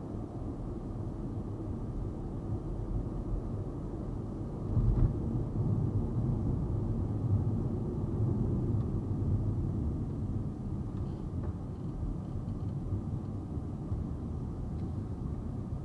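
Car driving: a steady low rumble of road and engine noise heard from inside the car, growing louder for a few seconds about five seconds in.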